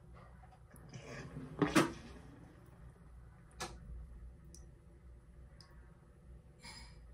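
Portable washing machine running with a faint low hum and a few short knocks and clicks, the loudest about two seconds in.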